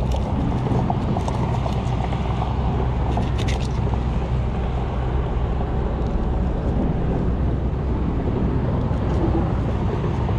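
Steady low rumble of road traffic on the bridge overhead, with a few faint knife scrapes from fish being cut, about three seconds in.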